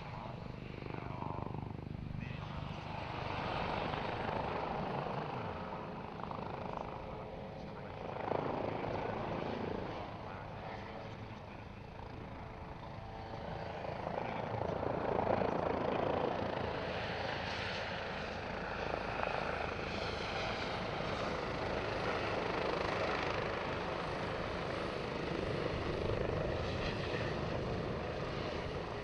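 Airbus H145M twin-turbine military helicopter flying a display, its main rotor and turbine noise swelling and fading as it manoeuvres and passes.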